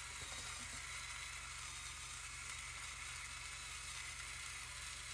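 Steady hiss over a low electrical hum, with no distinct events.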